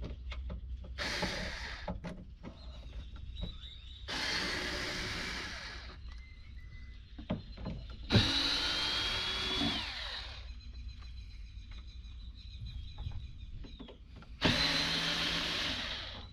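Electric screw gun running in four bursts of one to two seconds each, backing screws out of a wooden platform to take it apart.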